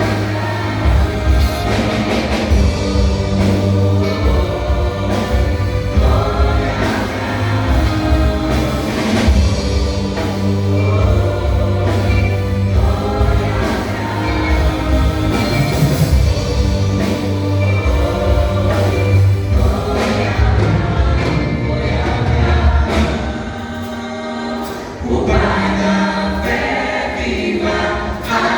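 Vocal group singing a gospel song in harmony over a steady low bass accompaniment, which drops back about twenty seconds in before the voices swell again near the end.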